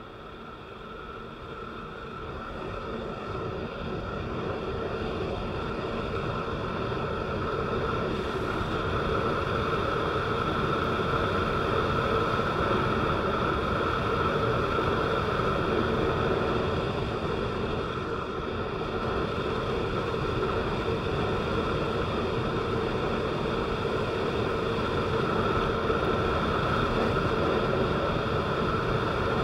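Vehicle driving on a wet road: steady tyre and road noise with a running hum. It grows louder over the first several seconds, then holds level.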